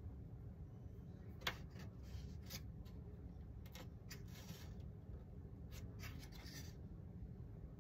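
Light scratching and rubbing as a model glider's wing ribs and leading edge piece are worked into position by hand, in short scrapes with one sharp click about a second and a half in.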